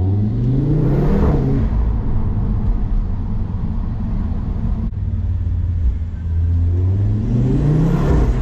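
Audi RS3 8P's turbocharged five-cylinder engine breathing through a 034 Motorsport carbon intake, accelerating hard: the revs climb sharply in the first second and drop at a gear change, hold steady, then climb again in a second pull near the end and drop at the next shift.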